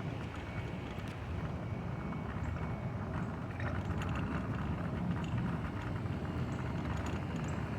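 Steady low hum of outdoor air-conditioning condenser units running.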